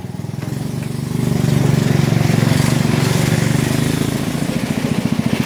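Small wooden longboat's motor running steadily with an even, rapid putter, over the rush of water past the hull.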